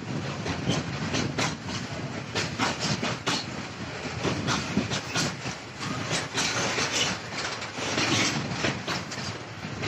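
Freight train of open-top wagons rolling past. Its wheels rumble steadily on the rails, with many irregular clacks as they pass over rail joints.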